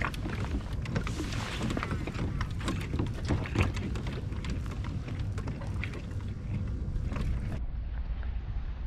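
Hobie Pro Angler 14 sit-on-top kayak on open water: water slapping its plastic hull under a steady low rumble, with many scattered knocks and clicks. The sound changes abruptly and turns duller near the end.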